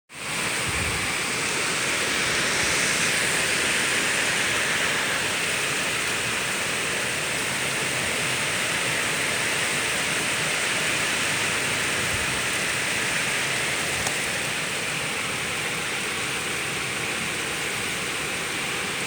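Heavy wind-driven rain and wind of a hurricane rain band, a steady dense hiss.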